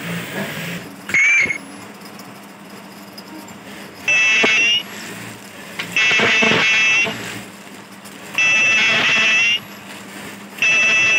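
Ultrasonic sealing machine working a non-woven tissue bag panel. Its horn gives a shrill, steady high-pitched whine in bursts of about a second, roughly every two seconds, each burst one seal or stitch pass. A low steady hum runs between the bursts.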